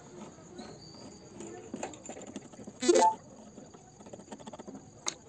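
Faint scratching of a pencil marking lines on a wooden plank. About three seconds in comes one brief, loud vocal call that rises in pitch, and a single click near the end.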